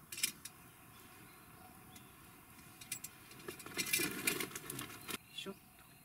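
A metal cooking pot with its lid being handled and set onto a burning split-log Swedish torch stove: a few sharp clicks, then a burst of rustling, clattering handling noise about three to five seconds in.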